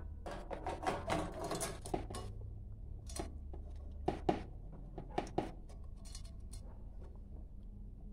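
A water bottle being slid into a wire motorcycle basket: scraping and rubbing against the wire for about two seconds, then a few sharp knocks as it is settled in place.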